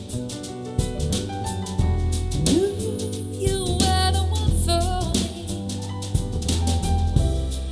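A soul-jazz song with a drum kit, a steady bass line and a sung melody coming in about two and a half seconds in, played back as a demo through in-ear monitors.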